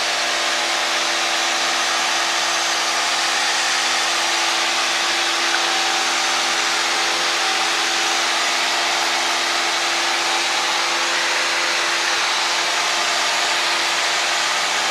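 Cabin noise of a single-engine Cessna in flight: its piston engine and propeller running steadily at climb power, a constant drone of several steady tones over a broad hiss of airflow.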